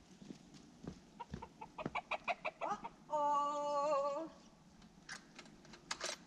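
Free-range chickens clucking: a quick run of short clucks, then one drawn-out call about three seconds in. A few sharp clicks follow near the end.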